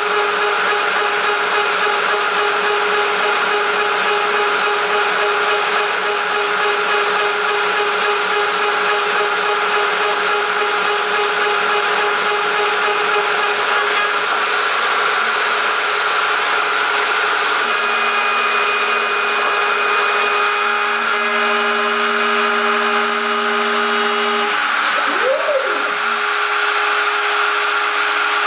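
Router spindle on a CNC router running at high speed while its end mill cuts 6061 aluminium: a loud, steady whine with cutting noise over it. There is a short swoop in pitch near the end.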